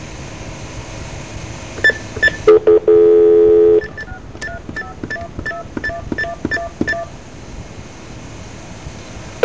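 Telephone line audio: line hiss, two short beeps, then a dial tone for about a second, followed by a quick run of about ten touch-tone (DTMF) digits dialled at roughly three a second.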